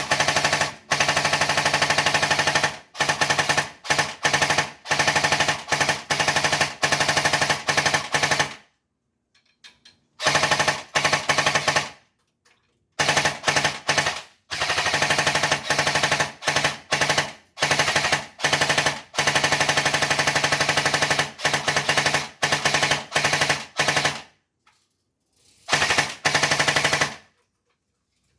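Airsoft MG42 machine gun firing long full-auto bursts, a rapid rattle lasting several seconds at a time, broken by a few short pauses and ending about a second before the end.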